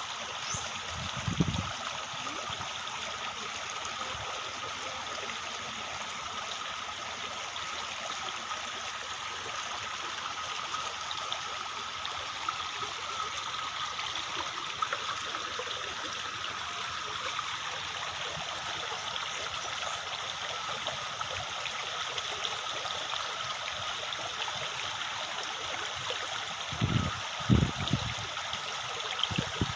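Steady rush of flowing water from a small stream. Short, dull low thumps break in about a second in and twice near the end.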